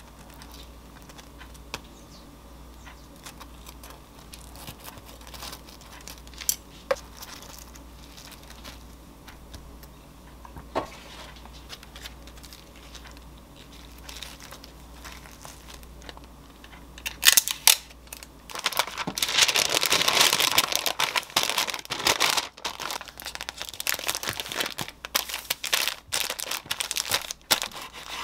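Baking paper crinkling loudly as a sandwich is folded and wrapped tightly in it, starting about two-thirds of the way through. Before that there are only a few light clicks as food is laid on the bread.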